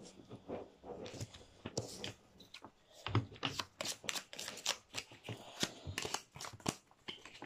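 Playing cards being handled close by: crisp card snaps and flicks, sparse at first, then a rapid run of them from about three seconds in.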